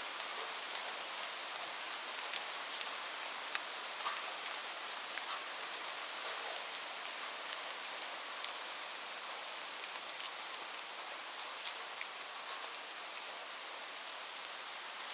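Steady rain falling, a constant hiss with individual drops ticking sharply here and there.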